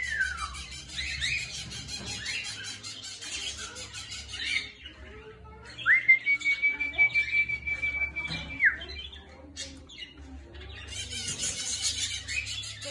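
Caged budgerigars warbling, a fast busy chatter of clicks and twitters. It drops away for a while, broken by one long steady whistle about six seconds in, and the chatter starts again near the end.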